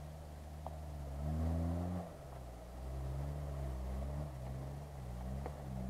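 Off-road SUV's engine working under load on a rutted dirt track. It revs up about a second in, drops back sharply near two seconds, then rises and falls with the throttle.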